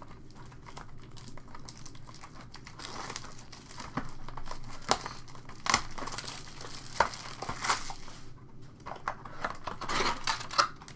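Clear plastic shrink wrap being torn and peeled off a cardboard trading-card box, crinkling and crackling with sharp snaps that grow busier a few seconds in.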